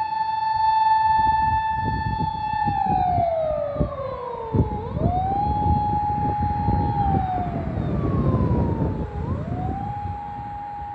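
Japanese police patrol car's high-pitched electronic siren: a held tone that slides down and then swings quickly back up, twice, over a rumble of road and engine noise.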